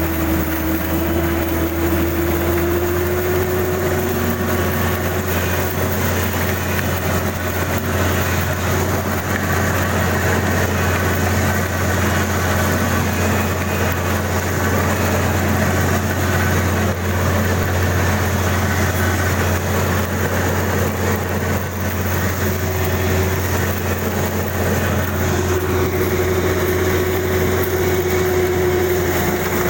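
Kubota DC-35 combine harvester running steadily: a constant engine hum with a held whine that wavers slightly in pitch.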